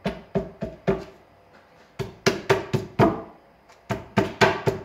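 Stone resin cowl being tapped by hand onto its mounting brackets under an integral basin: about a dozen sharp taps in quick runs, each with a short ringing tone from the resin shell.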